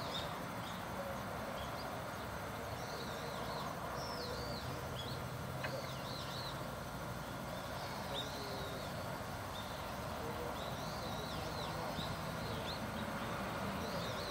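Small birds calling again and again with short, high, rising-and-falling chirps over a steady outdoor background noise.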